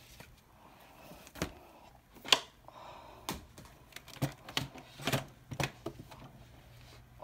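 Handling noise from a phone being moved around a desk: irregular clicks and knocks, the sharpest about two seconds in, over a faint steady hum.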